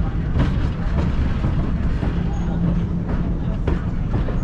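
Train rolling over the rails: a steady low rumble and hum with occasional sharp clicks of wheels over rail joints.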